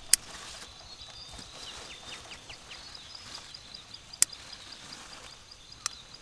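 Birds chirping, a rapid high twitter with a few falling chirps, broken by three sharp knocks, the loudest right at the start.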